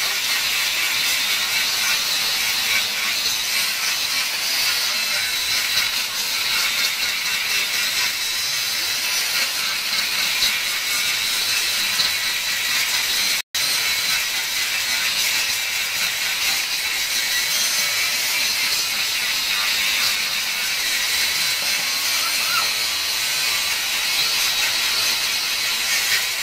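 Handheld angle grinder running steadily with a high whine, its disc grinding down the fresh weld seams on a Yamaha Fino 125 motorcycle's metal muffler shell to smooth them. It cuts out for an instant about halfway through.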